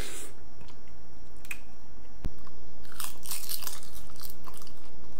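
Crisp crunching and chewing as a sheet of roasted seaweed (nori) is bitten into, with a run of crackly bites about three seconds in.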